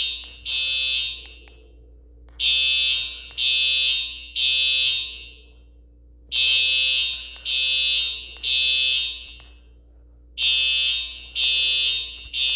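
Fire alarm horn sounding the temporal-3 evacuation signal: three loud, buzzy half-second blasts about a second apart, then a pause of about a second and a half, repeating over and over.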